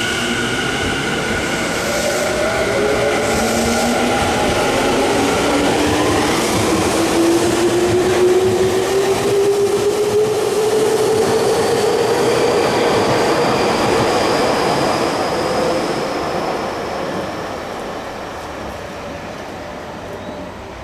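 Tokyu 5050 series 4000-number train accelerating away from the platform, its Hitachi IGBT-VVVF inverter whining. Steady high tones at the start give way to several tones that climb slowly in pitch for about fifteen seconds over the rumble of the wheels on the rails. The sound fades near the end as the train leaves.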